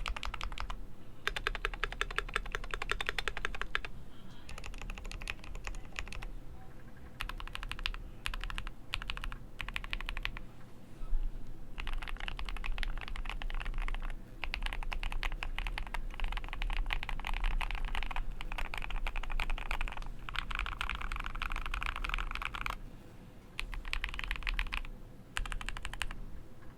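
Typing on a GMMK Pro mechanical keyboard with a brass plate, lubed and filmed Tecsee Diamond linear switches and double-shot ABS keycaps: rapid keystrokes in bursts of a few seconds with short pauses between.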